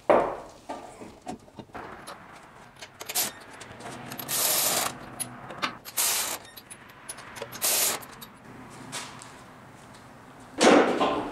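A truck wheel and tyre thump onto the hub. Then come several short bursts, each well under a second, of a power tool spinning the lug nuts on, and a louder clatter near the end.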